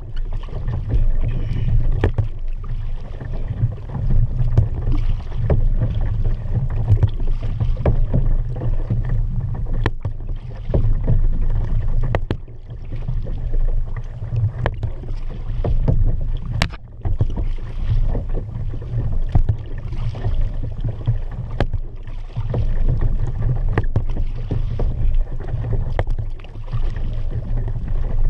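Kayak being paddled: water splashing and swishing against the hull in a regular rhythm of strokes, with sharp clicks of the paddle knocking against the boat, over a steady low rumble.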